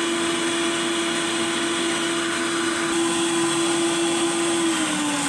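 Electric stand mixer running its wire whisk at high speed through Dream Whip and milk being whipped into topping: a loud, steady motor whine with whisking noise. Near the end the motor's pitch starts to drop as the mixer winds down.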